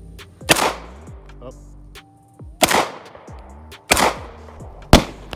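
Handgun shots: four single shots at uneven intervals, each followed by a short echo.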